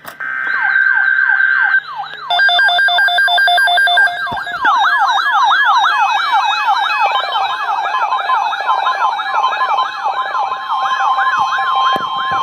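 Layered electronic siren tones: rapid yelp-like sweeps, each falling in pitch, repeat about three times a second, and several steady tones join in over them. A further steady tone comes in about ten seconds in.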